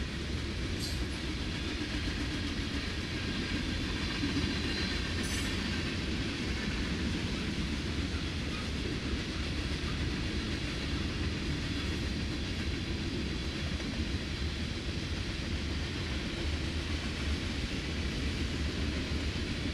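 Freight cars of a Norfolk Southern train rolling past on the rails: a steady rumble of wheels on track, with a couple of brief high clicks in the first few seconds.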